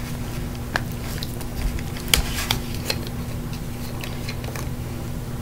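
Plastic juice bottle handled while its screw cap is twisted open: a scattering of small clicks and crackles over a steady low hum.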